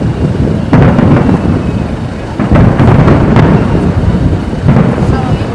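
Fireworks display: a rapid string of aerial shell bursts booming and merging into continuous deep rumbling, with several louder bursts standing out.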